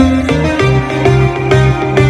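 A pop song played on a Harman Kardon Onyx Studio 5 Bluetooth speaker as a sound test. In this stretch there is no singing: a plucked guitar-like line plays over a bass line and a steady beat.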